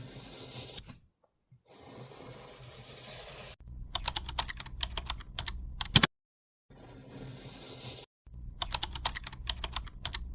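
Keyboard typing: quick runs of sharp key clicks, twice, between stretches of faint hiss, cutting in and out abruptly like an edited sound effect.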